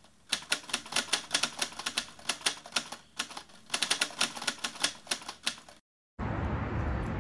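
Rapid, irregular clicking of keys, like a typewriter, several strikes a second, which stops about six seconds in. After a brief dead silence, a steady rushing background noise begins.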